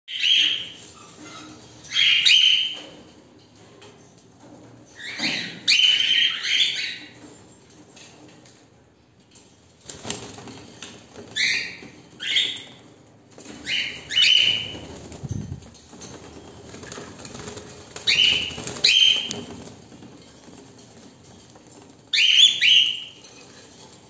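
Cockatiels giving short, loud, shrill calls, about a dozen of them, one or two at a time every few seconds, with faint rustling between.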